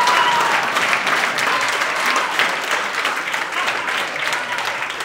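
Audience applauding and cheering in a hall, the clapping slowly dying down.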